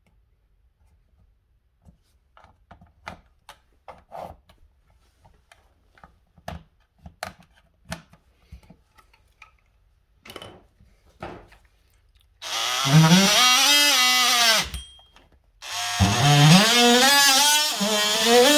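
Scattered light knocks and clicks of handling, then an oscillating multi-tool starts up twice, stopping briefly between runs. Its motor whine rises in pitch as it spins up while it cuts at a hole in sheetrock.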